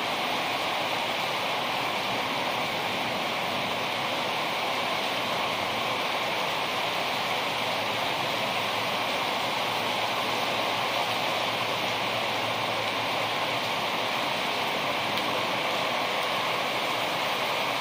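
Heavy rain pouring down in a thunderstorm, a steady, even hiss.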